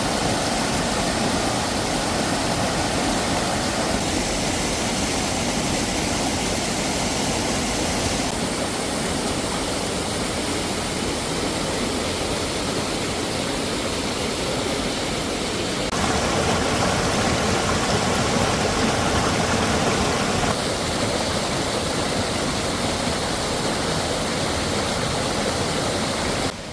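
Rushing water of a mountain valley stream, a steady roar that shifts abruptly in tone a few times.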